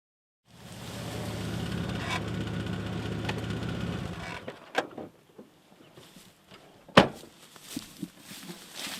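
An engine running steadily for about four seconds and then stopping, followed by scattered knocks and one sharp bang about seven seconds in.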